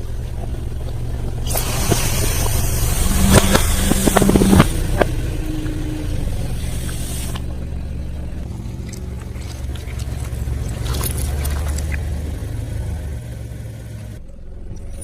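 Close-miked eating sounds: chewing and crunching of food, loudest and crackliest in the first half, over a steady low hum.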